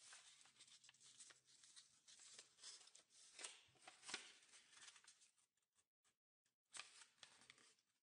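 Faint rustling and crinkling of a square of origami paper being unfolded, refolded and pressed into creases by hand, with many small crackles, and a short break in the sound about six seconds in.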